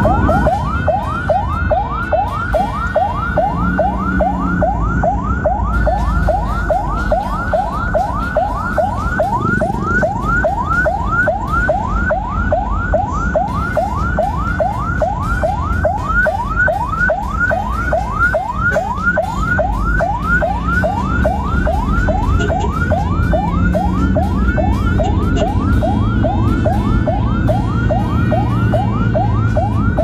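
Ambulance siren on a rapid yelp: quick rising sweeps repeated several times a second without a break, heard from inside the ambulance's cab over the low rumble of the vehicle's engine and tyres.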